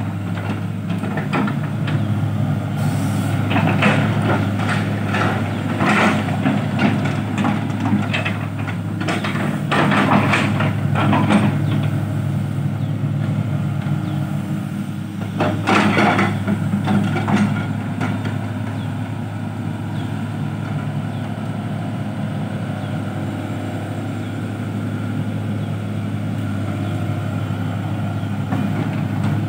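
Shanghai diesel engine of an XGMA XG822EL crawler excavator running steadily while the machine digs and swings. Several short noisy bursts from the working bucket and arm come through over it, the biggest about ten and sixteen seconds in.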